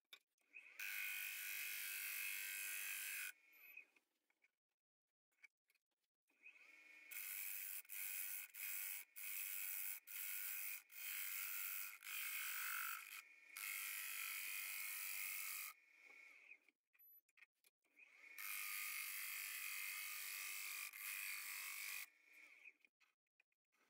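Gouge cutting the inside of a spinning macrocarpa pine bowl on a wood lathe: a buzzing hiss with a steady high tone running through it, in three cutting passes separated by near silence. The middle pass is the longest, broken by a few brief lifts of the tool.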